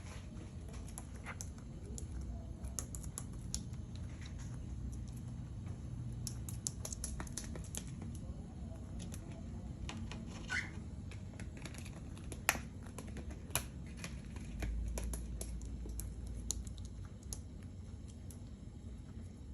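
Cockatiels pecking at and crunching lettuce: irregular small clicks and snips over a low hum, with one short chirp about halfway through.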